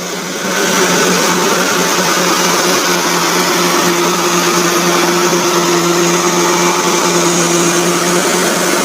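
Kubota DC70 combine harvester running steadily, engine and threshing machinery droning. It grows louder about half a second in and then holds level.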